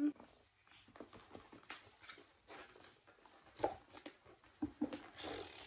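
Paper and cardboard packaging being handled while unboxing a MacBook: soft irregular rustles with scattered small taps and clicks.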